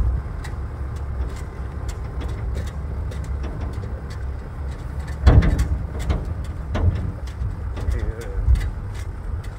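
Steady low rumble of a moving vehicle and wind on the microphone, with scattered light clicks and a few louder bumps about five, seven and eight and a half seconds in.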